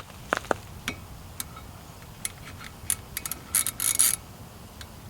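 Scattered light clicks and metallic clinks of brake parts and hand tools being handled, with a short burst of scraping and rattling about three and a half seconds in.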